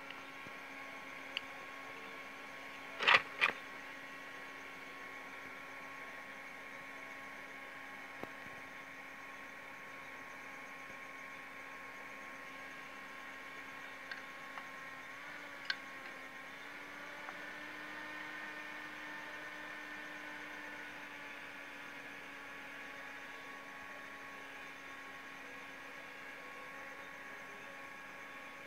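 A steady electrical hum made of several even tones, which dips slightly in pitch about halfway through. Two sharp clicks come close together about three seconds in, the loudest thing heard, with a few faint ticks later.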